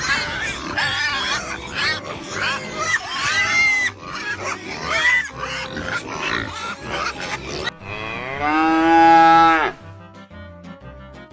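A run of short, high, arching animal calls, then a cow mooing once, long and loud, about eight seconds in. Light background music plays after the moo.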